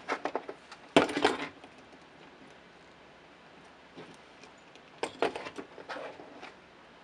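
Zip-tie tails being snipped off with small cutters, with sharp clicks and light clatter of the tool and plastic: a loud group starting suddenly about a second in and another group about five seconds in.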